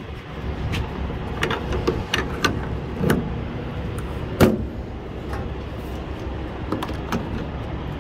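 Metal clicks and knocks of air-brake gladhand couplings and hoses being handled and connected at a trailer's nose, the loudest clunk about halfway through. Under them runs the steady low rumble of an idling truck engine.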